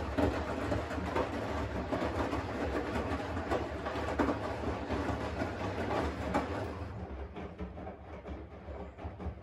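Washing machine running: a steady low hum from the motor and drum, with busy irregular clattering and knocking on top, easing off a little in the last two seconds.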